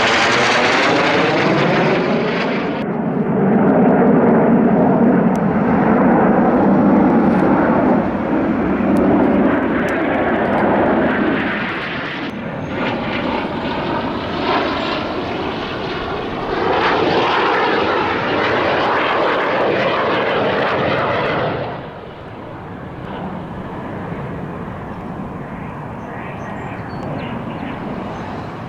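Fixed-wing aircraft engines running loud as a plane passes, the pitch falling in the first couple of seconds. The sound changes abruptly about three seconds in, and drops sharply to a quieter steady engine sound near 22 seconds.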